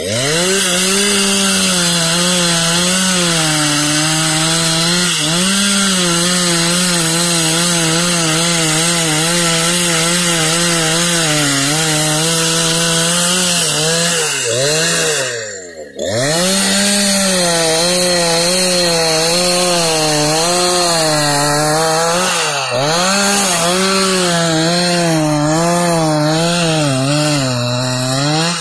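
Two-stroke chainsaw running at high speed while cutting wood, its pitch repeatedly dipping and rising. About halfway through it winds down and cuts out, then comes back abruptly at full speed.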